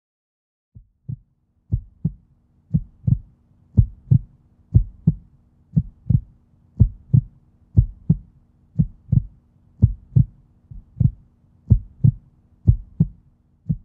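Heartbeat sound effect: paired lub-dub thumps about once a second, faint at first and louder after a few beats, over a faint steady hum.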